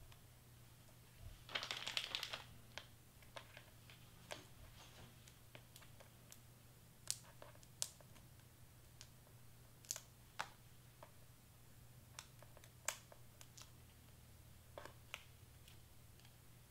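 Small paper and tape handling sounds: a brief crinkle about two seconds in, then scattered light clicks and taps as small cardstock pieces and foam tape squares are peeled and pressed into place by hand.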